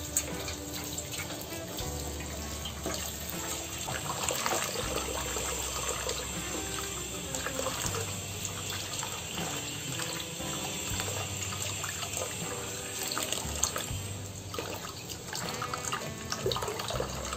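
Tap water running steadily into a stainless steel bowl, splashing as tomatoes and then green chillies are rinsed by hand under the stream.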